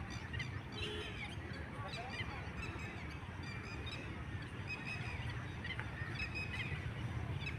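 A flock of waterbirds on a lake calling, with many short, overlapping honking calls, over a steady low rumble.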